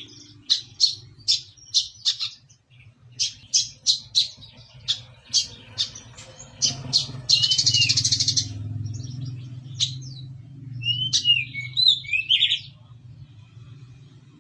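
Brown-throated sunbird (kolibri kelapa) singing: a quick run of sharp chirps, then a buzzy trill about halfway through, then a few slurred whistled notes, over a steady low hum.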